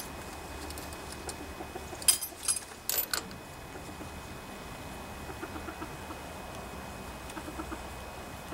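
Socket ratchet clicking in two short bursts about two and three seconds in, as the valve cover bolts on a Briggs & Stratton OHV engine are tightened down.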